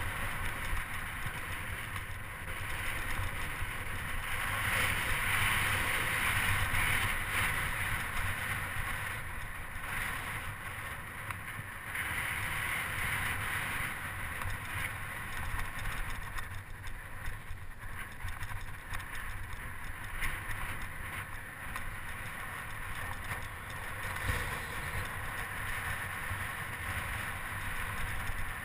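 Wind rushing over the microphone of a camera mounted on a moving bicycle, with the low rumble of tyres rolling over cracked asphalt; the rush swells louder a couple of times.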